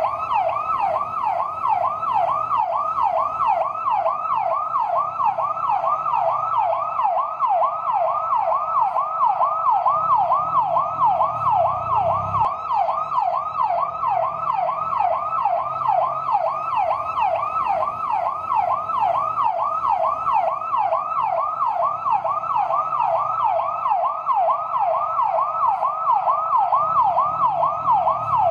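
Fire truck yelp siren: a loud, steady, fast wail sweeping up and down about three times a second, with a faint low rumble underneath.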